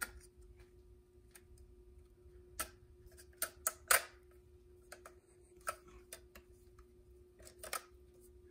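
Scattered light clicks and taps as a head gasket is handled, lined up and pressed down onto the cylinder block of a Polaris RZR 800 engine, with a louder cluster of clicks about four seconds in. A faint steady hum runs underneath.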